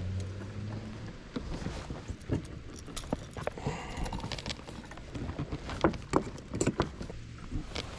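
Scattered irregular clicks, knocks and rattles of fishing gear being handled in a boat, with a low hum in the first second.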